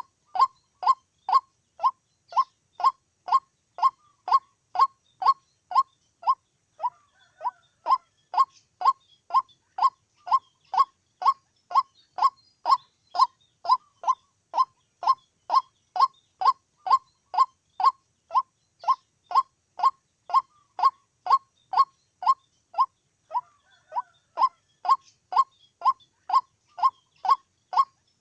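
White-breasted waterhen calling: a long, even series of short, identical notes, about two and a half a second, broken by a brief pause about a quarter of the way in and again near the end.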